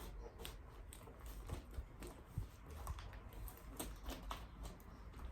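Cardboard box and plant packaging being handled and opened: faint, irregular rustles, crinkles and small taps, a few every second.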